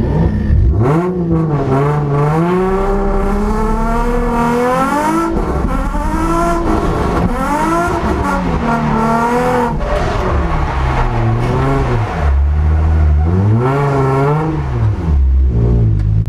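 Nissan 350Z drift car's engine revving hard, its pitch climbing and falling again every second or two as the throttle is worked through a drift on a wet track. A deep low rumble comes in over the last few seconds.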